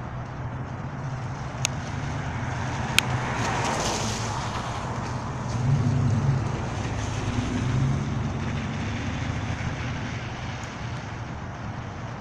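Road traffic: cars passing, the sound swelling and fading a few times over a steady low hum. Two sharp clicks come in the first few seconds.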